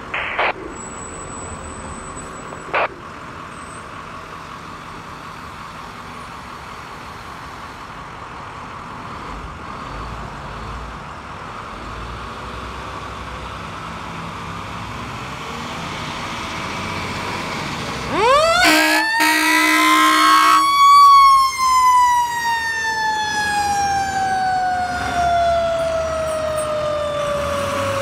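Fire engine responding with a mechanical siren: after a steady low engine rumble, the siren winds up steeply over a couple of seconds with air-horn blasts under it, then winds slowly down in pitch. Two short blips come near the start.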